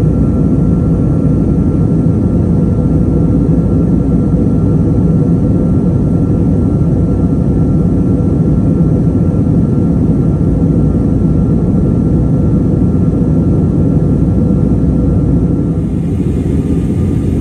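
Steady cabin noise inside an Airbus A320-family jet airliner in flight: a loud, even rush of engine and airflow noise with a faint steady whine above it. The noise drops slightly about sixteen seconds in.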